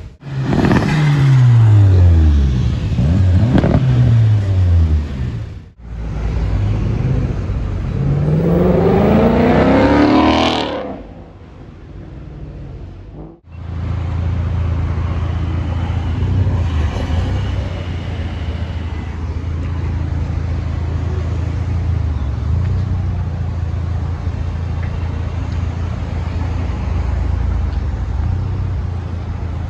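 Sports car engines revving hard in short clips: the engine pitch slides down twice, then climbs steeply to about ten seconds in. After a short lull there is a steady low engine rumble from cars idling and rolling past.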